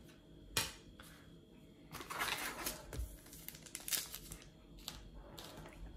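Wrapper of a Panini Adrenalyn XL trading-card packet crinkling in short bursts as it is torn open by hand, after a single light tap about half a second in.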